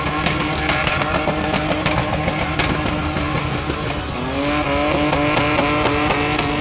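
A drift SUV's engine held at high revs while it spins its rear tyres in smoky donuts. The revs dip and climb again about four seconds in, with a hiss of tyre screech above.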